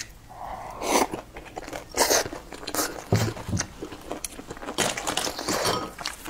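A person chewing a mouthful of food with leafy greens, picked up close by a clip-on microphone, with sharp mouth clicks and louder spells of chewing that come and go unevenly.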